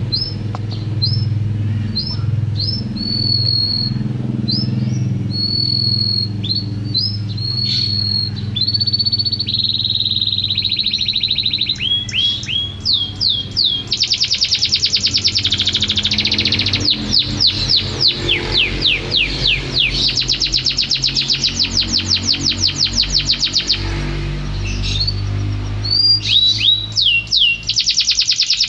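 Domestic canary singing continuously: strings of short rising whistles with held notes, breaking a little past halfway into long, very fast trills that repeat.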